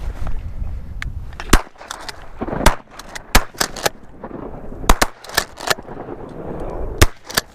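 A volley of shotgun shots, about ten in quick succession starting about a second and a half in, from waterfowl hunters firing at ducks, over low wind noise.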